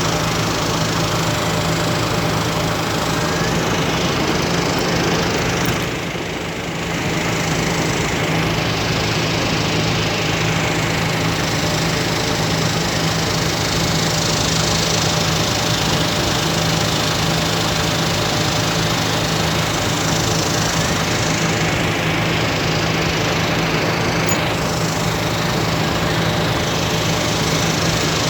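Engine running steadily with a constant low hum under a broad rushing noise, dipping briefly about six seconds in.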